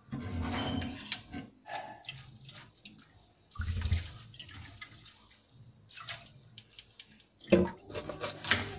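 Cooked spaghetti being drained and rinsed with cool water in a stainless mesh strainer: water splashing and pouring in two bursts, at the start and about halfway, with scattered small clicks between. Near the end, a knife cutting a green bell pepper on a plastic cutting board, a few sharp knocks.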